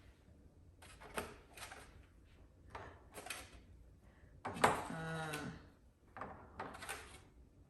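Eggs and a plastic egg crate being handled: several short clatters and scrapes of plastic. A little past halfway comes a brief low voiced sound from a person, about a second long.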